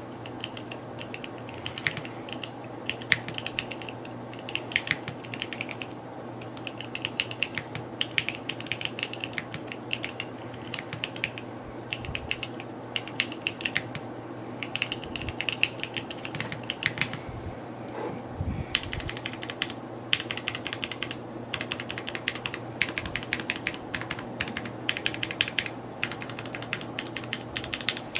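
Neo65 Cu 65% mechanical keyboard being typed on at a steady pace, a dense run of irregular key clicks and clacks that pauses briefly about two-thirds of the way through, over a steady low hum.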